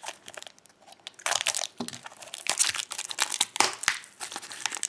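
A small package being unwrapped by hand: wrapping crinkling and tearing in several spells of rustling, starting about a second in.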